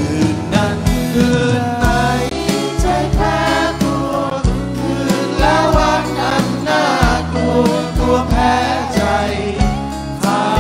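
Live band performance of a Thai song: men singing over acoustic guitars, with a bass line and a steady beat.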